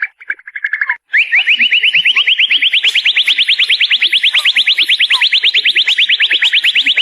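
White-rumped shama (murai batu) singing: a short rapid trill, a brief break about a second in, then a long fast run of upward-slurred notes, about eight a second, climbing a little in pitch.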